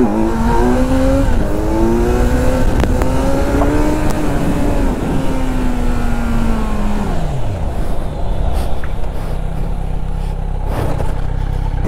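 Kawasaki Z900's inline-four engine revving up and holding high revs under acceleration, then the revs fall away steeply about five to seven seconds in, leaving a steady low rumble.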